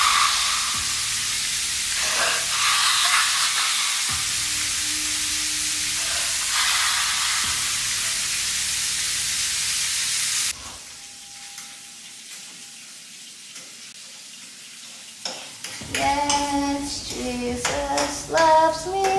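Ground beef sizzling loudly in a hot frying pan for about ten seconds, cut off abruptly about halfway through. After a quiet stretch, a woman sings briefly near the end.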